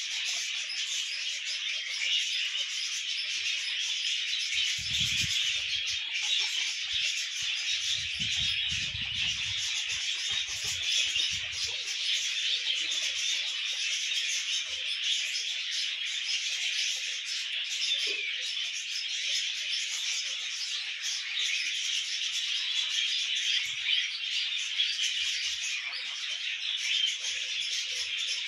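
Many small birds chattering steadily all at once, a dense high twittering with no pauses.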